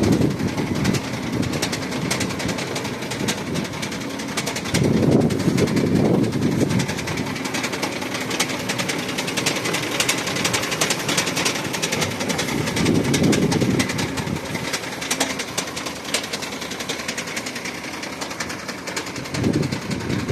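Weichai WP13 diesel engine in a Shacman truck running with a rapid, steady metallic knock, swelling louder a few times. Its oil pressure is down by one atmosphere.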